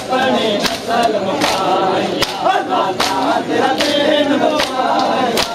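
A crowd of men chanting a noha together, with sharp chest-beats of matam struck in time roughly every 0.8 seconds.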